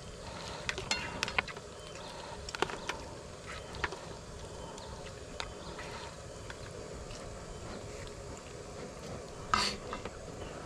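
Scattered light clicks and taps of a fork against a plastic plate during eating, over a steady background hiss, with one short, louder noise about nine and a half seconds in.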